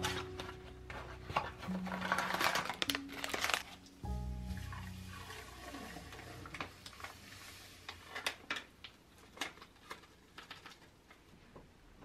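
Background music plays through the first half over paper rustling as a toilet-cleaner sachet is opened. From about halfway in, foaming toilet-cleaner powder pours into the toilet water and fizzes with many small crackles.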